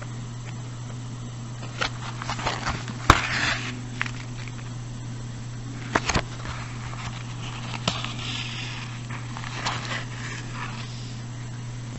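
Needle and thread being pulled through holes in cardstock while the card is handled: scattered rustles, scrapes and a few sharp clicks, the sharpest about three seconds in, over a steady low hum.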